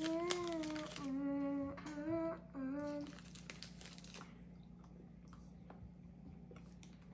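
A voice humming a few held, sing-song notes for about three seconds. After that, soft crinkling and rustling of a small snack wrapper being torn open and handled.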